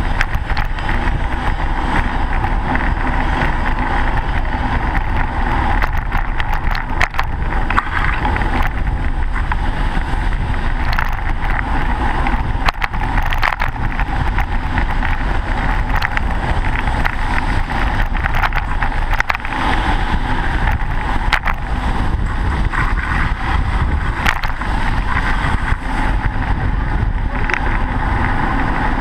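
Steady wind rush and road rumble on a bicycle-mounted camera's microphone while riding, with scattered clicks and knocks from bumps in the lane. Car traffic runs alongside.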